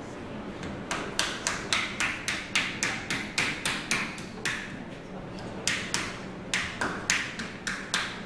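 Wooden paddle slapping down on soft clay pieces laid on a board, beating them together into one slab. A quick run of sharp pats, three to four a second, with a short pause about halfway.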